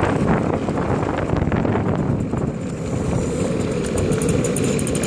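A classic 50 cc two-stroke moped engine running steadily as the moped is ridden along.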